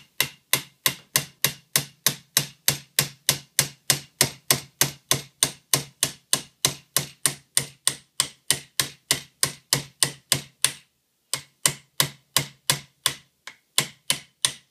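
A hammer tapping a roll pin punch to drive out the bolt catch roll pin of an AR-15 lower receiver: light, rapid metal taps, about three or four a second, with a brief pause about eleven seconds in.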